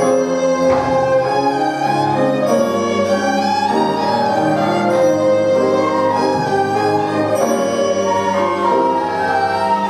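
A music school orchestra playing a slow melody on bowed strings, violins leading over held lower notes.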